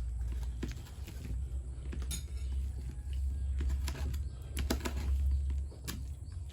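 Someone eating mie goreng (fried noodles): scattered light clicks and taps of a spoon or fork on a plate, with mouth sounds of eating, over a steady low hum.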